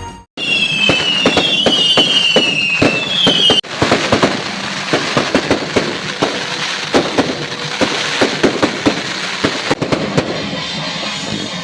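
Firecrackers going off in a dense, rapid crackle. A high whistling tone falling in pitch repeats several times over the first few seconds, and the sound breaks off abruptly and resumes twice.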